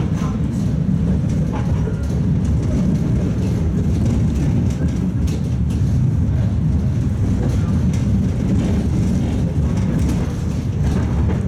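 Tatra T3 tram running along the track, heard from inside the car: a steady low rumble of wheels on rail and running gear, with scattered light clicks and knocks.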